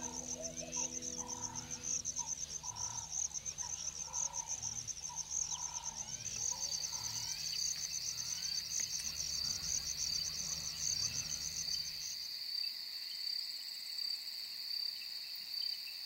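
Crickets trilling in a night chorus: one high, fast-pulsing trill, joined about six seconds in by a second, slightly lower pulsing trill that takes over after the first stops about twelve seconds in. A lower call repeats every half second or so through the first few seconds.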